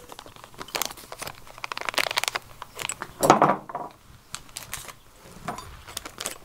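Small clear plastic bag crinkling and rustling as hands handle and open a packet of new hose clamps, with a louder rustle about three seconds in.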